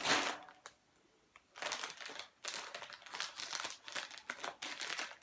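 Plastic balloon bag crinkling and rustling as it is handled and opened. There is a short pause about a second in, then the crackling resumes.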